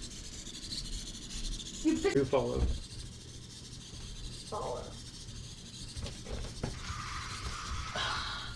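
Small electric gear motors of a SunFounder four-wheel-drive Raspberry Pi robot car running, a steady low hum with rubbing and hissing noise.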